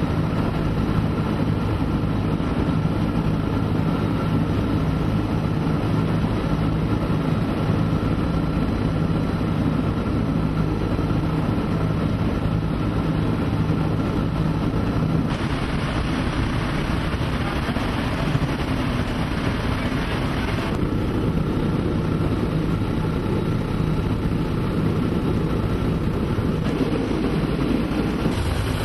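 A B-17 bomber's Wright R-1820 Cyclone nine-cylinder radial engines running steadily in flight, heard from inside the fuselage as a loud, deep, even hum. About halfway through the hum gives way to a rougher rush with more hiss.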